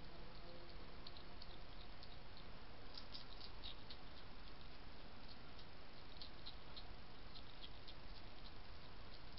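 European hedgehog crunching dry kitten biscuits from a dish: quick, crisp clicks in irregular runs over a steady background hiss.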